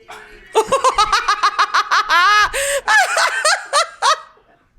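A person laughing hard in a quick run of high-pitched bursts, with a few longer drawn-out notes in the middle, stopping about four seconds in.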